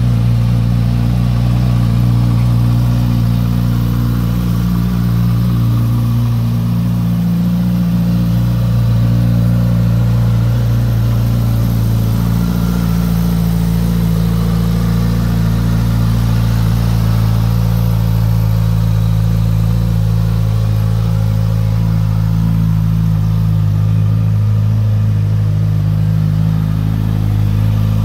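Suzuki GSX-S1000GT+ inline-four engine idling steadily.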